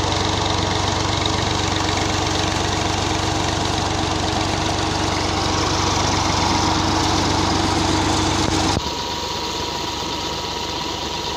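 Ghazi 65 HP tractor's diesel engine running steadily, driving a water pump through a pipe. About nine seconds in, the sound cuts suddenly to the same engine heard further off and quieter.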